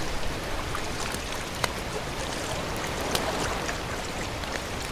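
Water splashing and trickling, with scattered small drips and ticks.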